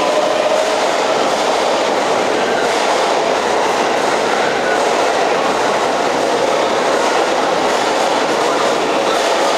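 Keisei AE-series Skyliner electric train pulling out, its cars rolling past with steady wheel-on-rail noise as it gathers speed. A faint rising motor whine fades out just after the start.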